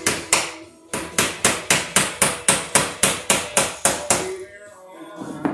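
Hammer blows in a fast, even run of about four a second, with a brief pause near the first second. The run stops a little after four seconds, and one more knock comes near the end.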